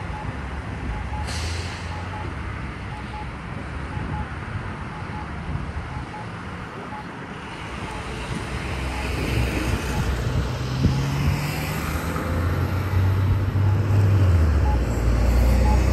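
Road traffic at a signalized intersection: a transit bus and cars driving through, their engine rumble building in the second half and loudest near the end. Underneath, an accessible pedestrian signal's locator tone ticks at a steady pace.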